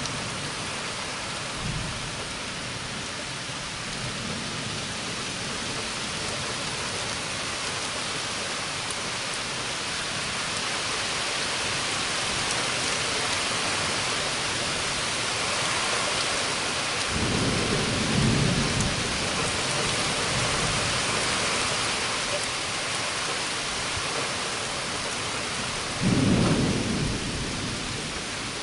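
Heavy, steady rain of a summer thunderstorm, with thunder rumbling about two-thirds of the way through and a louder, sharper thunderclap near the end.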